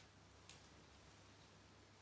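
Near silence with two faint crackles from a small wood fire, one at the start and one about half a second in, over a soft hiss.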